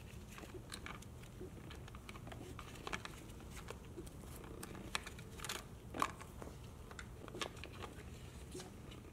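Faint scattered clicks and scrapes of a Phillips screwdriver backing out small screws and of a plastic body cover being handled, with a few sharper clicks about three, five and six seconds in.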